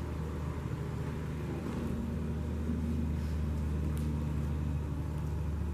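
A steady low mechanical hum, like a motor running, with a faint click about four seconds in.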